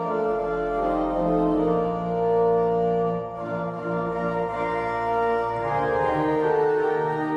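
Organ music: slow, held chords that change every second or two over a deep bass note.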